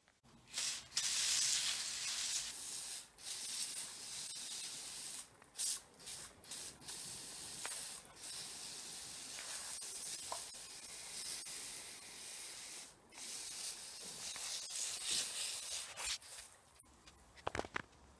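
Garden sprayer hissing out a fine mist in repeated spurts, with brief breaks between them.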